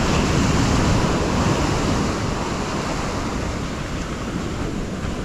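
Ocean surf in the shore break: waves breaking and washing up the sand in a steady rush that swells to its loudest about a second in and then slowly eases.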